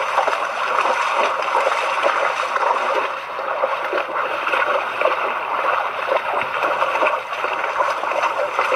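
River water rushing past in a steady, even wash.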